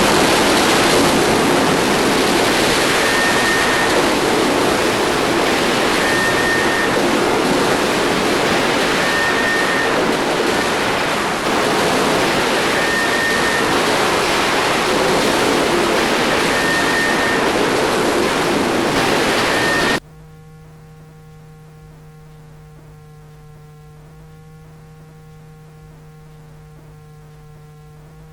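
Electronic noise music: a loud, steady hiss like rushing water, with faint short high beeps about every three seconds. About twenty seconds in it cuts off abruptly to a quiet, steady low drone of held tones.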